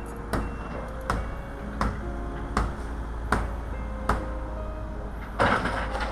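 Background music with a steady beat, about one stroke every three quarters of a second over held notes, under a steady low hum; a louder rush of noise comes in near the end.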